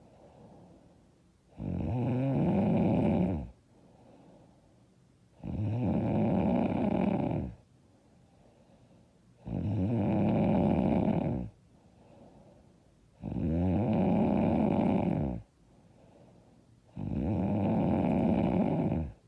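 A woman snoring loud and hard: five long snores, each about two seconds, coming about every four seconds in a steady rhythm, with faint breathing between them.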